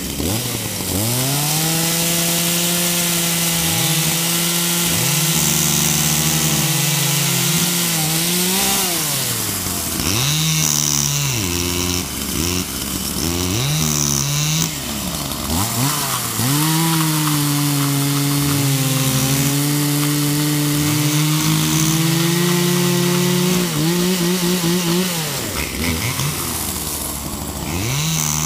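Gasoline chainsaw cutting a fallen tree trunk: the engine climbs to full throttle and holds there through long cuts, dropping back and revving up again several times between them. There is a quick burst of four throttle blips late on.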